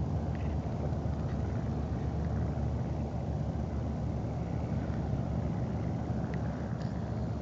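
Cessna 150's piston engine at climb power, heard from the ground as a steady, even drone as the plane lifts off and climbs out after a touch-and-go.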